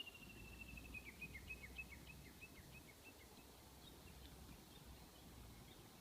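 A faint bird song: a long whistled note gliding slowly down, then a run of short, quickly falling notes that fade out about three seconds in, over a quiet low background hum.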